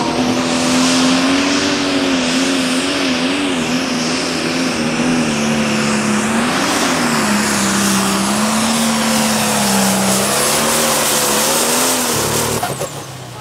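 Pro Stock pulling tractor's turbocharged diesel engine running flat out under load, its pitch wavering up and down, with a thin high whistle above it. Near the end the engine sound drops away suddenly.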